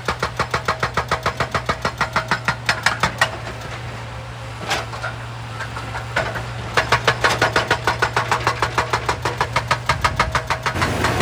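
Excavator-mounted hydraulic rock breaker hammering rock at about seven blows a second over the excavator engine's steady running. The hammering stops for about three seconds, with a single knock in the pause, then starts again and runs until shortly before the end.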